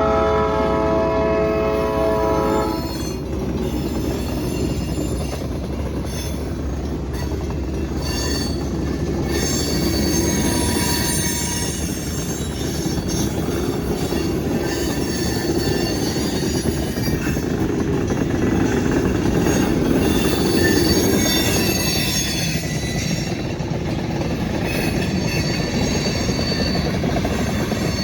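A train's locomotive horn sounds a chord that cuts off about three seconds in. Then the train rolls past with a steady rumble, and high-pitched wheel squeal sets in from about nine seconds.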